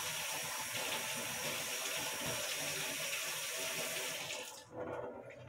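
Kitchen tap running steadily, rinsing the stand mixer's whisk, then shut off about four and a half seconds in, followed by a brief knock.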